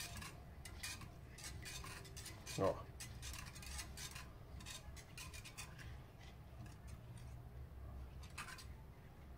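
Wire whisk clicking and scraping against the inside of a stone pot as cornmeal is whisked into cold milk to dissolve the lumps. It makes a quick, uneven run of light metallic clicks.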